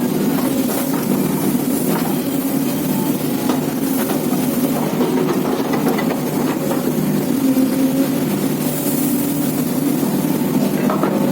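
Heavy diesel engine running steadily at a low, even pitch, with scattered faint knocks and clanks.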